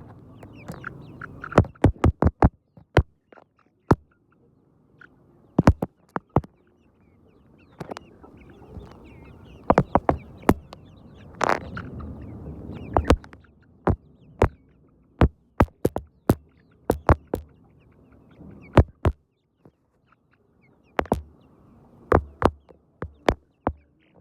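Irregular sharp taps and clicks, the loudest sound, over a soft low murmur of chickens that comes and goes.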